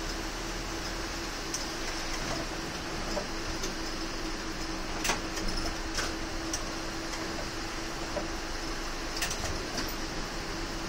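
Interior of a city bus riding slowly on a wet road: steady engine and tyre noise with a constant hum that stops near the end, and a few light clicks and rattles.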